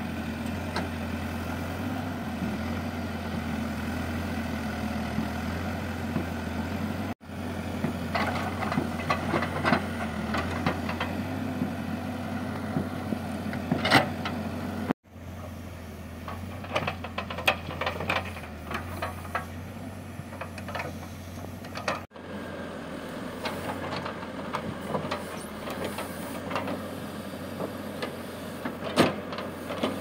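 Hidromek backhoe loader's diesel engine running steadily while its backhoe arm digs, with scattered clanks of the bucket and linkage. The sound cuts out abruptly three times.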